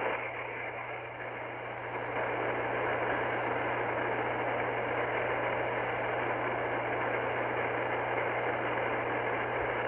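Icom IC-R30 receiver in lower-sideband mode on the 27 MHz CB band giving out steady static hiss, with a low hum under it. This is band noise between transmissions: no station is on the channel.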